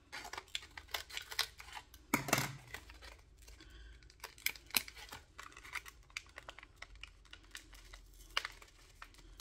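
Scissors snipping and packaging crinkling and tearing as a mascara package is cut open: a run of irregular clicks and crackles, loudest a little over two seconds in.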